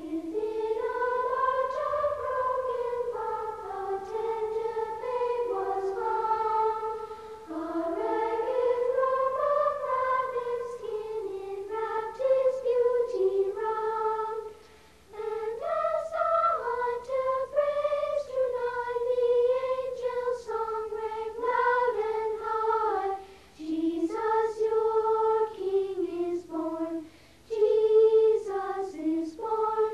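A group of children singing a Christmas carol together, unaccompanied. The high voices carry one melody in phrases, with short breaths between them about halfway through and again near the end.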